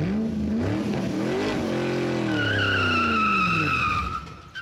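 Logo intro sound effect: a pitched, engine-like tone that rises and then falls away, joined about halfway through by a high squeal, the whole fading out near the end.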